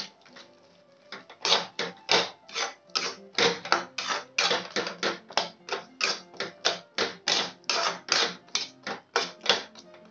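Flat metal spatula scraping and stirring in a kadhai, mixing peanuts into hot, sticky jaggery syrup: quick scraping strokes about three a second, starting about a second in. Background music plays underneath.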